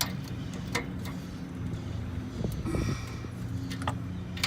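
A steady low mechanical hum, with a few sharp metallic clicks and taps from hand tools.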